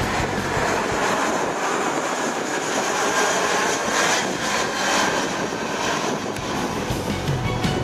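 Jet engines of an Airbus A320 airliner on final approach with its gear down, passing low overhead: a steady rushing roar with a sweeping whoosh about halfway through as it goes over and away.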